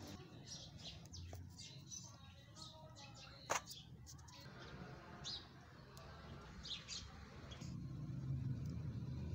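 Small birds chirping on and off in short high calls over a low steady rumble, with one sharp, louder click about three and a half seconds in.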